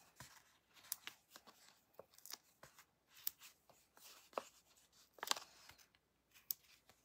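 Quiet, scattered rustles and light ticks of paper crafting: cardstock and a sheet of foam adhesive dimensionals being picked up and handled on a tabletop.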